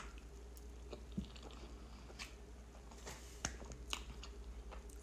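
Faint chewing of a mouthful of soft, milk-soaked tres leches cake, with small wet mouth clicks scattered through.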